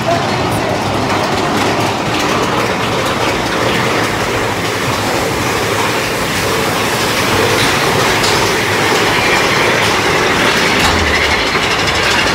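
Big Thunder Mountain Railroad mine-train coaster cars running on their track: a steady loud rattle and rumble of wheels on rails, with clacking.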